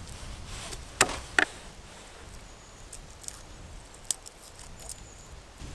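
Knife and cleaver knocking on a wooden cutting board while garlic cloves are crushed and peeled: two sharp knocks close together about a second in and another near four seconds, with small light ticks and crackles in between.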